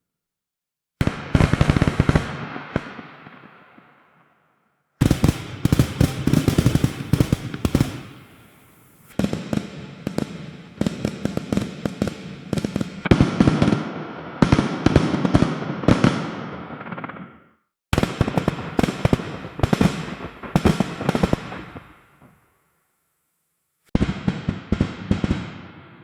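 Fireworks going off in volleys of rapid bangs and crackles. Each volley starts suddenly and fades over a few seconds, with short silent gaps between some of them.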